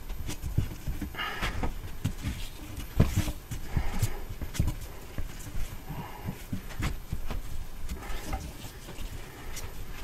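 Exhaust heat wrap being wound by hand around a 3-inch exhaust pipe: irregular rustling of the wrap and gloved hands, with scattered soft knocks and clicks as the roll is passed around the pipe.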